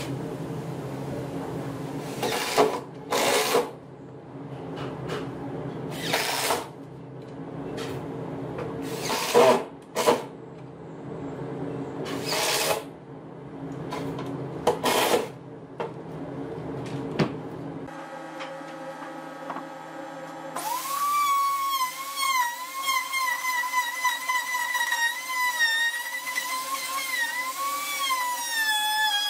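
Short, loud bursts of a power tool over a steady machine hum. Then, from about two-thirds of the way in, an electric plunge router runs continuously, its high whine wavering and dipping in pitch as it cuts a slot in a wooden board.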